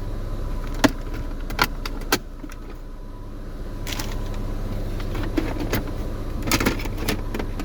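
Scattered clicks and knocks of hard plastic and metal parts being handled as a car radio unit is worked loose from the dashboard, over a steady low hum.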